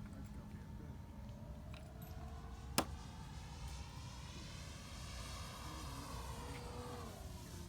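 Electric RC Pitts Special biplane's Rimfire 1.20 brushless motor and propeller whining as it flies, the pitch rising and then falling over about four seconds in the second half. A single sharp click comes a little before it, over a steady low rumble.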